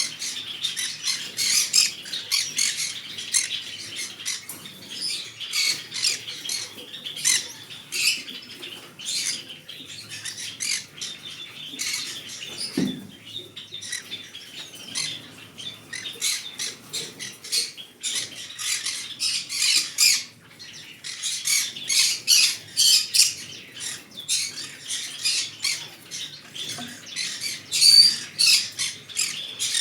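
Green-cheeked conure calling in a rapid run of short, shrill chirps and squawks, one after another, with a few brief pauses.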